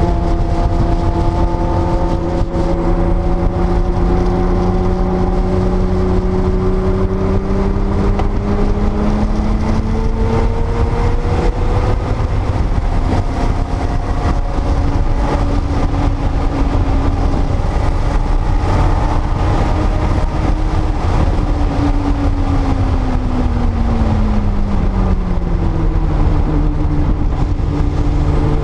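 1979 Porsche 930 Turbo's air-cooled turbocharged flat-six running at speed on track, its note climbing slowly through the first dozen seconds, then falling in pitch over several seconds near the end as the car slows, under a heavy low rumble.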